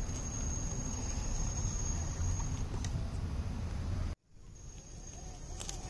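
A steady high insect trill, typical of crickets, over a low rumble. The sound cuts out abruptly about four seconds in, then returns.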